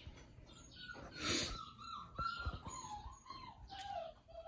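A thin, wavering high-pitched animal call that slides slowly down in pitch over a couple of seconds, with a short burst of noise about a second in.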